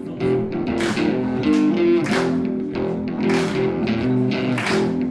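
Background music: a guitar riff over a drum beat.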